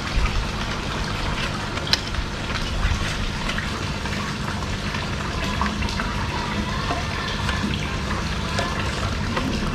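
Steady running water from the koi pond over a low hum, with a few light clicks of the plastic aerator filter housing being handled, the sharpest about two seconds in.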